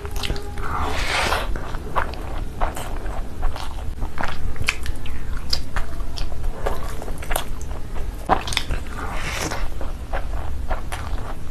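Close-miked eating sounds of mutton curry and rice eaten by hand: wet chewing, biting meat off the bone and repeated lip smacks and clicks, with two longer squishy stretches, about a second in and near the end.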